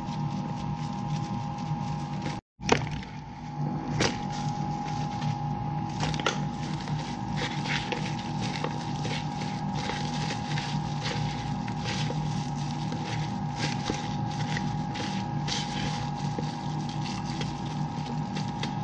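Gloved hands tossing fried chicken pieces in a plastic bowl: many light rustles, taps and scrapes. Under them runs a steady electrical hum with a high held tone, broken once by a short dropout and a click about two and a half seconds in.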